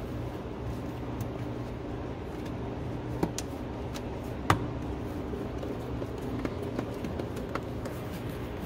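Steady low hum with a few sharp clicks, the loudest about four and a half seconds in.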